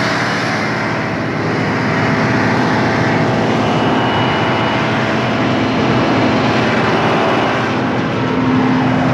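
Salem 1600 coal auger drilling machine running steadily: a loud, even engine drone, with a humming tone that grows stronger near the end.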